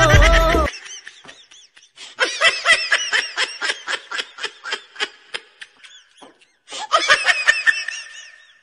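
Background music that cuts off under a second in, then high-pitched laughter in a quick run of short, evenly spaced 'ha' bursts, about four a second, and a second shorter run of laughter near the end.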